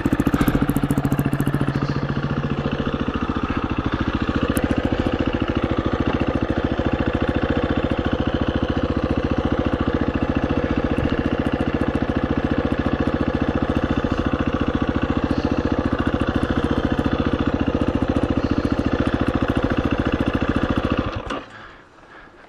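KTM 350 EXC-F single-cylinder four-stroke dirt bike engine idling steadily, then switched off and cutting out suddenly near the end.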